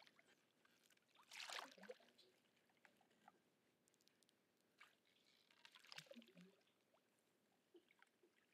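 Canoe paddle strokes in calm river water: soft splashes and gurgles as the blade dips and draws through. The loudest comes about a second and a half in, with two more just past the middle.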